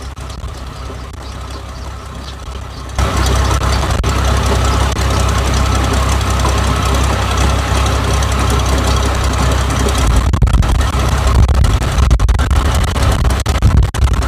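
Rice combine harvester's engine running steadily, then getting much louder about three seconds in and staying loud.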